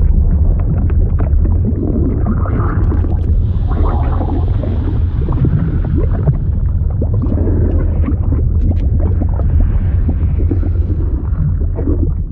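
Fluid sound effect: a deep steady rumble with gurgling and bubbling, full of small pops, with slow swelling surges of moving liquid.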